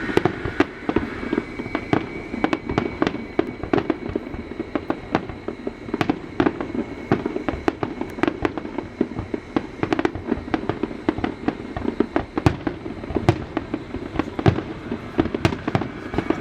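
Aerial fireworks display going off: a dense, irregular string of bangs and crackling reports, several a second.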